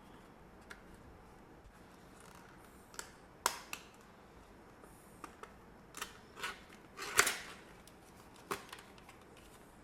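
Scattered light clicks and short scrapes of small objects being handled, about ten in all, the loudest about three and a half and seven seconds in, over faint room tone.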